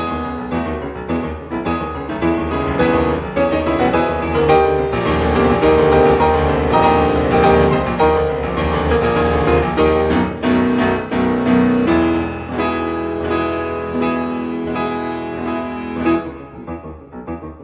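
Background piano music: many quick notes over sustained chords, getting fuller toward the middle and thinning near the end.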